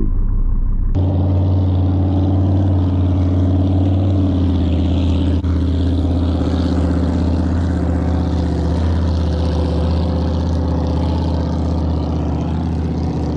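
Boat's outboard motor running at a steady low speed, an even hum that cuts in abruptly about a second in.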